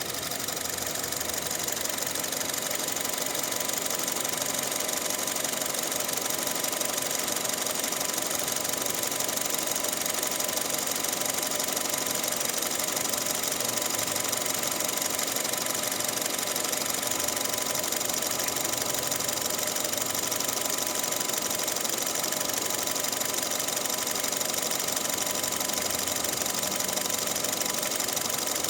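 Honda VTEC petrol engine idling steadily with a fast, even ticking. The owner wonders whether this is valve clatter or knocking after nearly a year on lower-octane Pertalite fuel instead of Pertamax.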